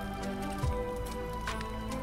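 Background music of held, sustained notes, with a soft low thump about two-thirds of a second in and another near the end.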